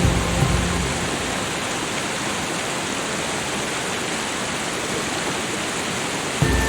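Steady rushing noise of falling water, even and unbroken. Background music fades out about half a second in and comes back near the end.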